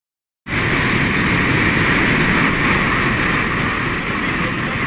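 Wind rushing over a camera mounted on the outside of a moving car, mixed with tyre and engine noise; it starts abruptly about half a second in and then runs steadily.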